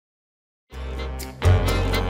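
Intro theme music starting abruptly out of dead silence, with a louder hit and a fuller beat coming in about a second and a half in.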